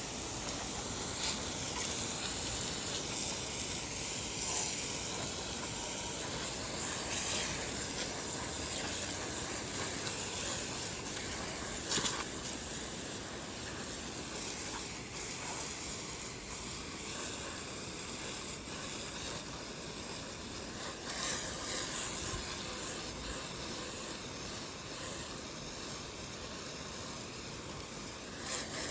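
Steady hiss of a water spray washing down freshly sawn poplar slabs.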